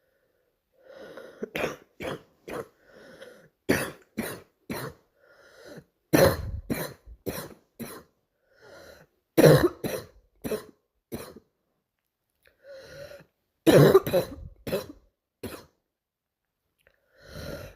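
A girl coughing over and over, in about five fits of several short coughs each, with fainter breaths between the fits.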